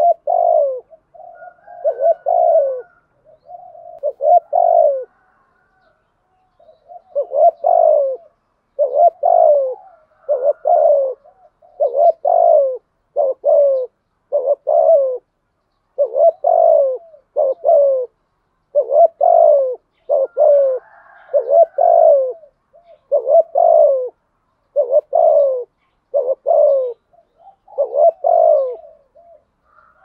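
Spotted dove cooing over and over: short phrases of low, falling coos, roughly one a second, with a brief pause about six seconds in.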